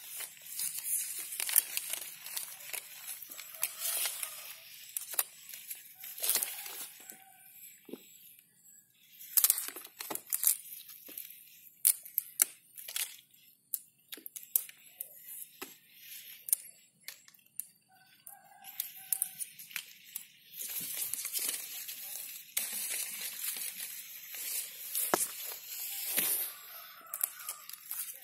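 Irregular crackling, snapping and rustling as fingers pluck young flower buds off a water apple tree and brush through its leaves close to the microphone.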